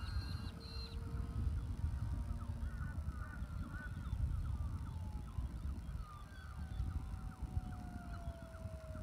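Brushless electric motor and propeller of an RC Tiger Moth biplane humming overhead, its pitch sliding steadily down over the last couple of seconds as the plane passes. Wind rumbles on the microphone underneath.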